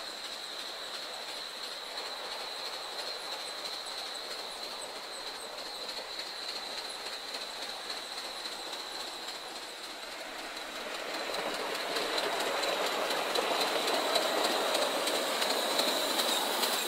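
Coal-fired live steam Gauge 3 model train rolling along garden track, its wheels clicking over the rail joints, with a thin steady high-pitched whine. It grows louder about two-thirds of the way through as the train comes close.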